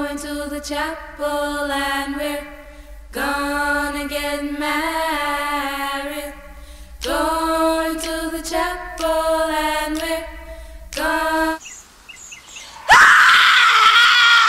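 A woman's voice singing a slow melody in long held notes. Near the end it is cut off by a sudden, loud, high-pitched scream.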